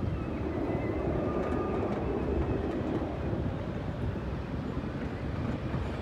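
Steady rumbling noise of a moving vehicle that carries the microphone, with a faint thin squeal about a second in.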